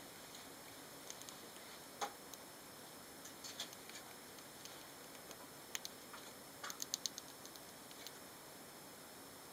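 Scattered small, sharp clicks and taps from Roborovski dwarf hamsters in their cage, with a quick run of five or six clicks about two-thirds of the way in, over a faint steady hiss.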